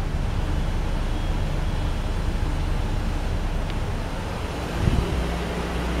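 A 2016 Ford Police Interceptor Utility running, a steady low rumble with one short low thump about five seconds in.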